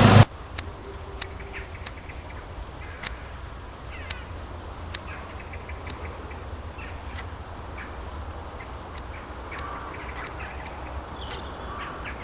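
A running engine, likely the ride-on lawn mower, cuts off abruptly just after the start. Quiet outdoor ambience follows, with a steady low rumble and scattered short bird chirps and ticks.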